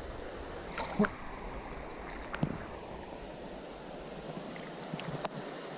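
Creek water sloshing and lapping around a camera held at the surface, with a few light ticks and small splashes.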